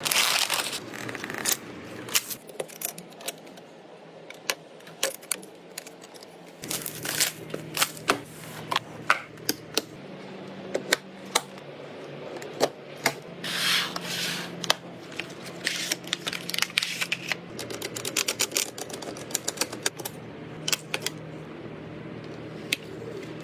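Computer parts being handled and fitted together during a PC build: many irregular sharp clicks and taps, with a few brief rustles. A low steady hum comes in about six seconds in.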